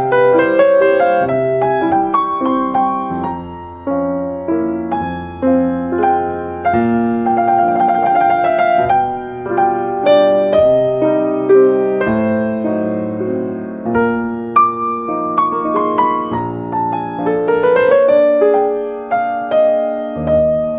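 Background music: slow solo piano, notes struck one after another and left to ring out.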